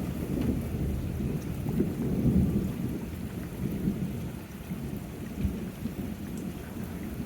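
Thunder rumbling low and rolling, over steady rain; the rumble swells about two seconds in and eases off after.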